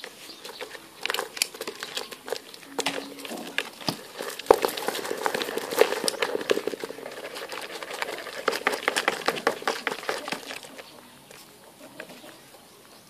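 Live freshwater shrimp being shaken out of a mesh trap into a plastic bucket: a dense run of small clicks and patters as they flick and splash in shallow water, thinning out near the end.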